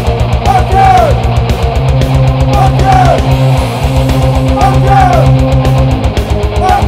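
Loud heavy rock song: distorted electric guitars over a rapid, even drum pulse, with a short falling phrase repeating about once a second.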